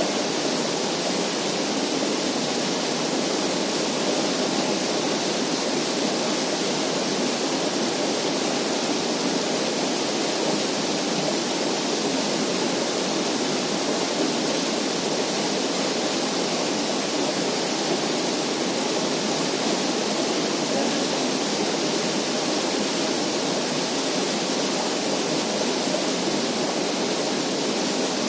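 Steady, even rushing of flowing water, unbroken throughout.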